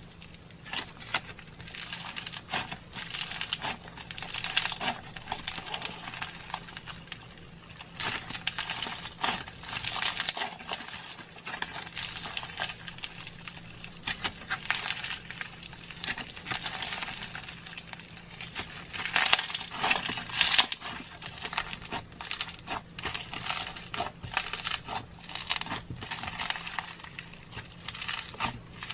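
Slime being squished and worked by hand, giving a dense run of small crackling pops and clicks that swell and fade in waves.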